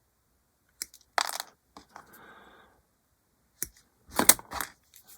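Small hard hobby tools and parts being handled on a workbench: a few sharp clicks and short clatters, with a brief scrape in between.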